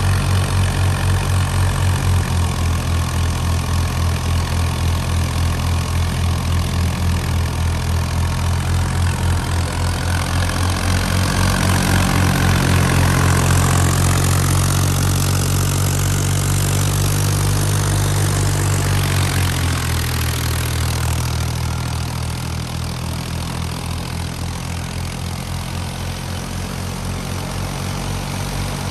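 Fiat 480 tractor's three-cylinder diesel engine running steadily while driving a wheat thresher, with a continuous rushing noise from the machinery over its pulsing engine note. About twenty seconds in, the engine note drops slightly and the sound eases, then holds steady.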